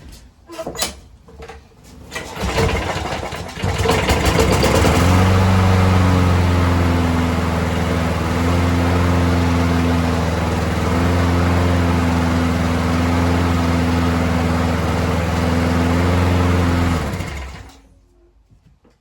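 Briggs & Stratton push-mower engine being pull-started: a few clicks and the cord being pulled, then it catches about four seconds in and runs at a steady speed for about thirteen seconds before stopping. It runs after its carburettor has been cleaned.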